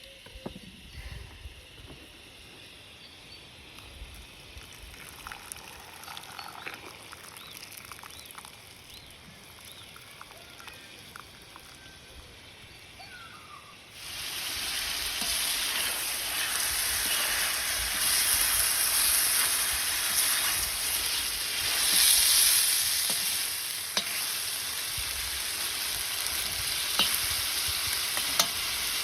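Food frying in a cauldron over an open fire: about halfway through a loud sizzle starts suddenly, as food goes into the hot fat, and carries on steadily with a few sharp clicks. Before that there are only light clicks and scrapes.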